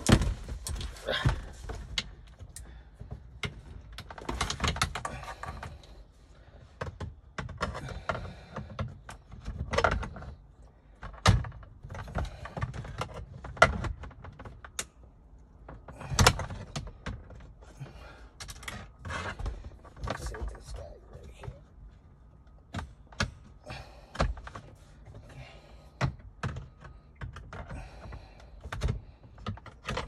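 Irregular clicks, knocks and scraping of hands and tools working the plastic parts of a car's gear shift assembly and console, with a sharp knock at the start and another about 16 seconds in.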